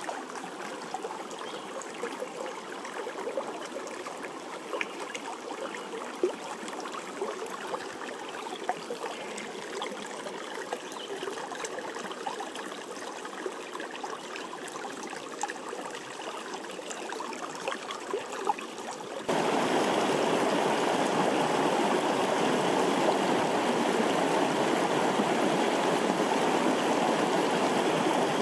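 Shallow river water trickling and gurgling over rocks, with scattered small plinks. About two-thirds through it cuts abruptly to a louder, steady rush of water running over a rocky riffle.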